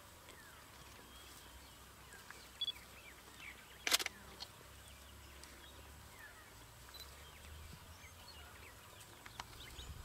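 Quiet outdoor bush ambience: a faint steady low hum with scattered faint short chirps, and one sharp click about four seconds in.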